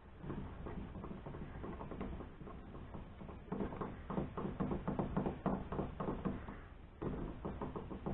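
Rapid light metallic clicking and rattling as a mini lathe's cross slide and its gib adjustment are worked by hand. The clicks come in runs, loudest from about three and a half to seven seconds in.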